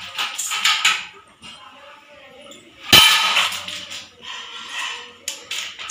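Water splashing and sloshing at an aluminium bucket during a toddler's bath, with one loud sharp hit about three seconds in and a few smaller ones near the end.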